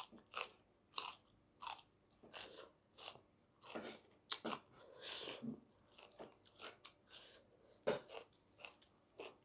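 Close-up eating sounds: a person chewing, with irregular sharp crunching bites about once a second.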